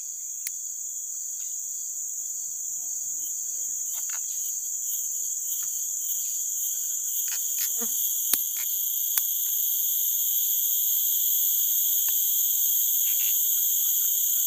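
Steady, high-pitched chorus of forest insects, a continuous shrill buzzing that grows slightly louder toward the end. A few faint clicks and rustles of handling come through it.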